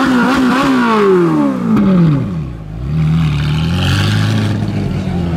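Ferrari 458 Spider's 4.5-litre V8 through a Capristo exhaust, revved high and then falling away over about two seconds. Near the middle it briefly quietens, then the engine runs on at low revs with a small rise as the car pulls away.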